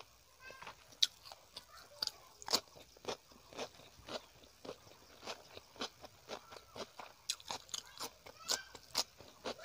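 Close-miked crunching as raw cucumber slices are bitten and chewed: crisp, sharp crunches about twice a second.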